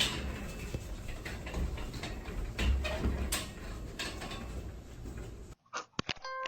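Scattered clicks and knocks over a low rumbling noise, with a sharp knock at the start and another about three seconds in. It cuts off suddenly near the end, leaving a few isolated clicks.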